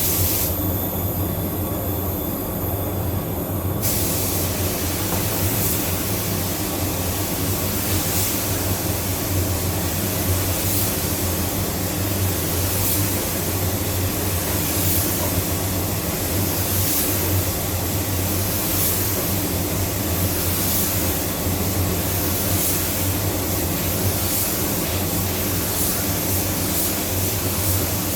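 Paint spray gun hissing steadily as it lays down a coat of candy colour, starting about four seconds in and swelling slightly every couple of seconds with each pass, over a steady low hum.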